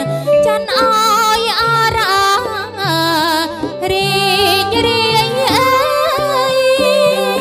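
Khmer mohori music: a female singer holds long, heavily ornamented lines with a wide, wavering vibrato over a traditional Cambodian ensemble.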